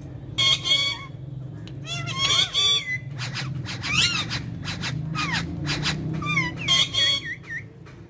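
Rose-ringed parakeets (Indian ringnecks) calling: about six short bouts of chattering squawks mixed with whistled notes that slide up and down, with brief gaps between them.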